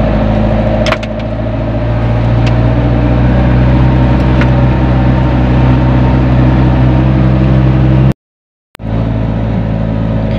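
Car engine running steadily with road noise, heard from inside the cabin while driving, with a few light clicks. The sound cuts out completely for about half a second near the end.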